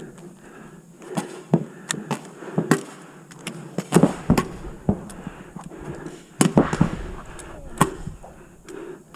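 Pump paintball pistols firing in a game: irregular sharp pops, single and in quick clusters, with the loudest clusters about four seconds in and again around six and a half seconds.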